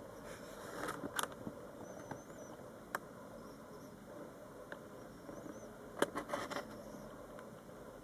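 A sparrowhawk plucking and tearing at a freshly killed pigeon: soft rustles and sharp ticks, in clusters about a second in and about six seconds in. Under it runs a steady low background hum, with faint high chirps of small birds.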